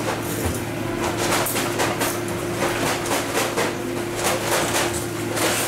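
Bakery kitchen noise: a steady machine hum under frequent knocks and clatter as wooden bagel boards are handled at a steel deck oven.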